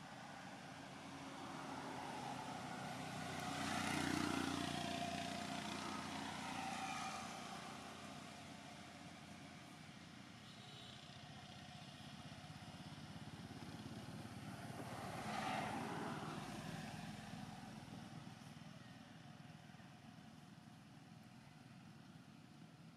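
Motor vehicles passing by twice, each one swelling up and fading away: about four seconds in and again about fifteen seconds in.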